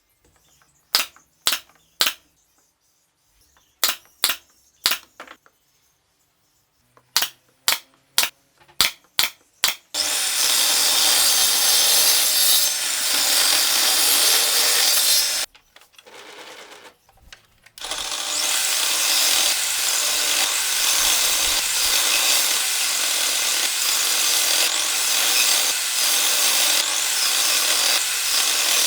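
Wood being worked in a workshop. First comes a series of sharp knocks, singly and in quick runs. About ten seconds in, a tool starts cutting into the wood with a steady rasping noise; it stops for about two seconds near the middle, then runs again.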